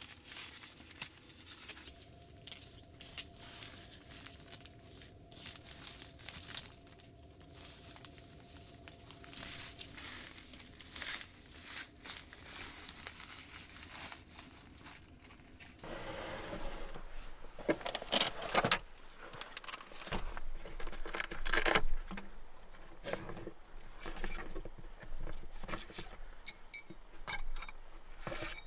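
Tent fabric rustling and crinkling as it is handled and fastened along the side of a wooden truck camper, with scattered small clicks. Later, sharper clicks and a run of light metallic clinks as metal tent stakes are handled in a canvas tool roll.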